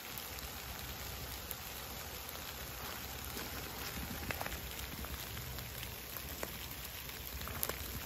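Small hail pellets falling on a tent's nylon fabric: a steady fine patter with scattered light ticks.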